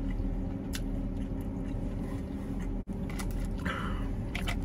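People biting and chewing pizza, with scattered small mouth clicks and a short crunchy patch a little before the end, over a steady low hum inside a vehicle cabin.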